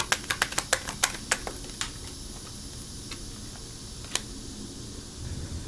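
Tarot cards shuffled by hand: a quick run of snapping clicks, about six or seven a second, that stops about a second and a half in. A few single taps follow, the sharpest about four seconds in, as cards are set down on a wooden table.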